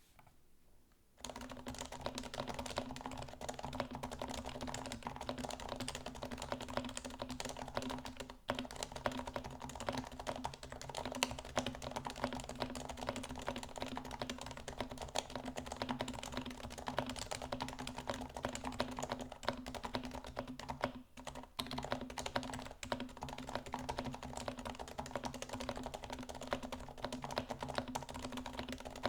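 Fast, continuous typing on an HHKB Hybrid keyboard with Topre switches silenced with Deskeys No. 3 rings and lubed with 205g0, giving soft, muted bottom-outs. The typing starts about a second in and pauses briefly twice.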